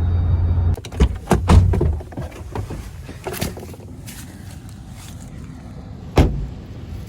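Steady low road rumble inside a moving truck's cab, cut off abruptly just under a second in, followed by a quick series of clunks and clicks like a truck door being worked, and one more sharp clunk about six seconds in.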